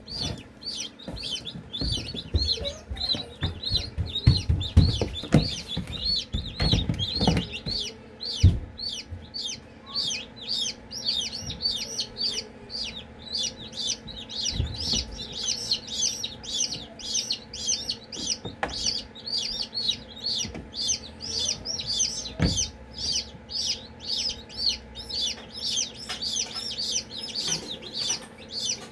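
Newly hatched chicks peeping steadily: short high peeps, each falling in pitch, about three a second. Knocks and rustles of handling in the first several seconds and once more near the end.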